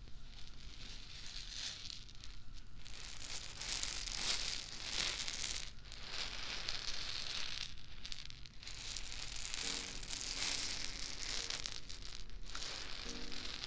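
Crinkling and rustling of a prop being handled close to the microphone, in stretches of a few seconds broken by short pauses.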